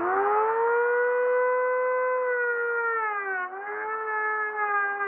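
Dremel rotary tool's motor whining at high speed with a 3D-printed sanding drum on the shaft, its pitch rising as it comes up to speed at the start and then holding steady. About three and a half seconds in the pitch sags briefly and then wavers as the drum is worked against the wood.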